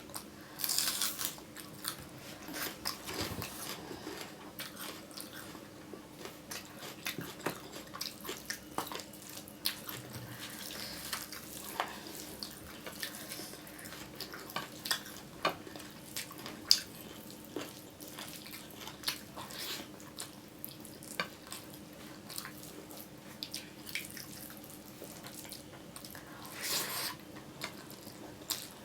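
Close-miked eating: wet chewing and mouth sounds with many short, scattered clicks, over a faint steady hum.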